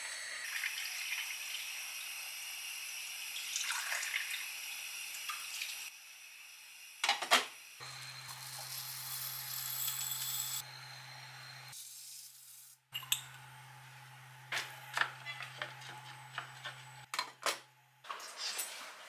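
Water running and pouring in a kitchen sink and pot while rice is being cooked, with a low steady hum through the middle and a few short clinks of pots and utensils in the later seconds.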